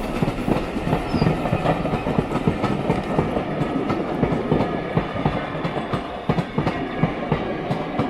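Heritage steam railway train running along the line, its wheels rumbling steadily with a rapid, irregular clatter of clicks over the track.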